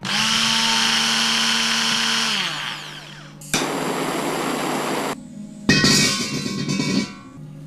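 A small electric motor running in three bursts. The first lasts about two and a half seconds and drops in pitch as it winds down. The other two are shorter and start suddenly, one about three and a half seconds in and one near the end.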